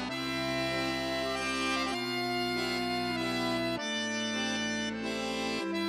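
Background music: held chords over a bass line, the chord changing about every two seconds.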